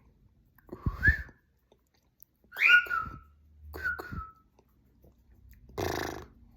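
Pet bird calling: three short whistled chirps with quick pitch slides, then a longer, harsher squawk near the end.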